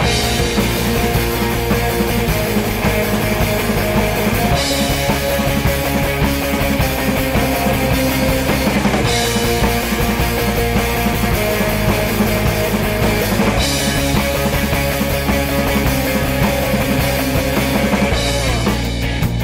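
Instrumental passage of a punk-leaning rock band recording: drum kit and guitars playing a steady driving beat with no singing, the pattern shifting about every four and a half seconds.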